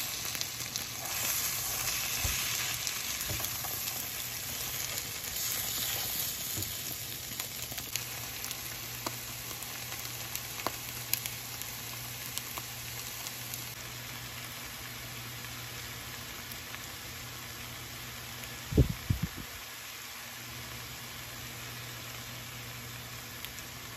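Bitter melon and eggs sizzling in a frying pan while being stirred with a silicone spatula, with a few light scraping clicks. The sizzle is strongest in the first several seconds and then settles to a quieter steady hiss over a low hum. A brief loud thump about 19 seconds in.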